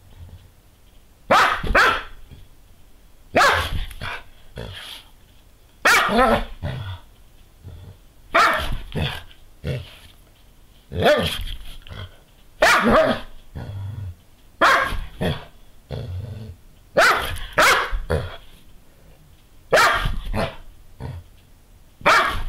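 Fawn Doberman pinscher giving short growly barks, repeated about every two seconds, ten in all.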